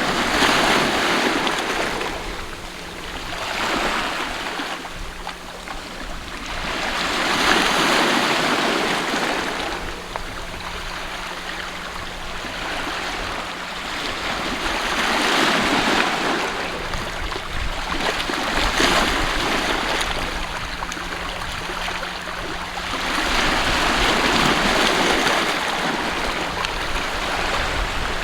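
Sea waves washing in and out on the shore, each wave swelling to a loud rush of surf and then ebbing, every few seconds.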